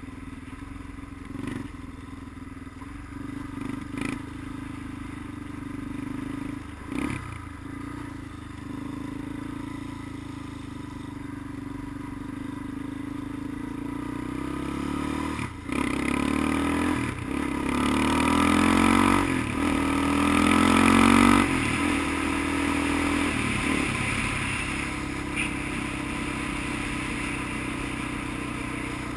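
Vehicle engine heard on board while riding: steady running at first, then from about halfway it accelerates through several gears, the pitch rising and dropping back at each shift, loudest about three quarters through, before settling into a steady cruise.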